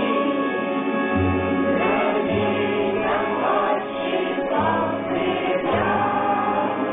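A folk ensemble's choir singing a Russian wartime song in chorus, over low sustained accompaniment notes that change every second or so.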